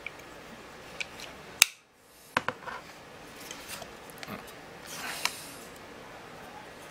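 Handling sounds of a USB digital microscope being pressed into the clear plastic clip on its stand: a few sharp plastic clicks, the loudest about a second and a half in, and soft rubbing of plastic on plastic.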